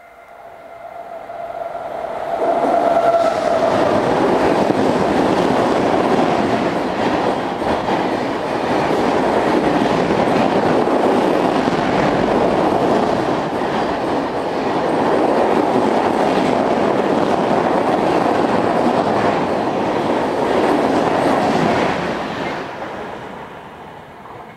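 Express train hauled by a WAP-7 electric locomotive running through a station at speed: the locomotive's horn trails off in the first few seconds, then the loud rush and clickety-clack of LHB coaches going past for about twenty seconds, fading near the end as the train draws away.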